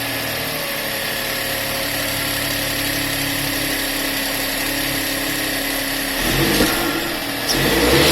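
VW Polo 1.0 TSI three-cylinder turbo petrol engine, fitted with a BMC performance air filter and euro-spec intake channel, idling steadily just after starting. About six seconds in it is revved, the sound swelling twice in quick succession.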